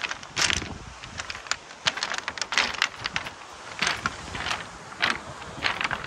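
Footsteps on a beach of large rounded pebbles, the stones shifting and knocking together under each step, about two steps a second.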